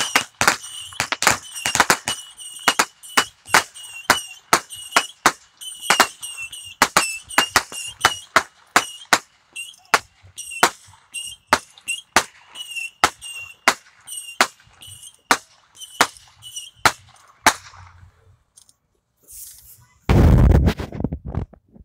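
A string of firecrackers going off in a long, irregular run of sharp, loud pops, about two or three a second, stopping after about seventeen seconds. Near the end comes a short loud rumble of the phone's microphone being handled.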